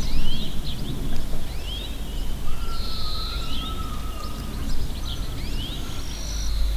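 Countryside ambience: small birds chirping in quick rising and falling calls, one long whistled note in the middle, over a steady low rumble.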